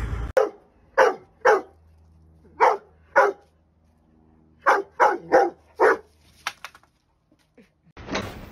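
Rottweiler barking at a push broom, about ten short barks in ones, pairs and a quick run of five, with silent gaps between them.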